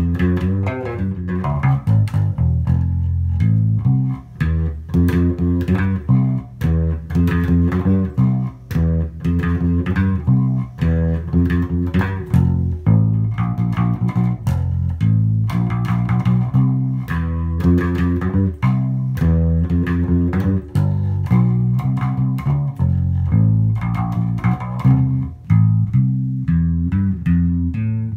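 Electric bass guitar played through a Carvin Pro Bass 200 combo amp and its speaker: a continuous run of plucked bass notes and riffs with sharp attacks. The amp plays clean, without the speaker rattle it had before its repair, and is set at about half power.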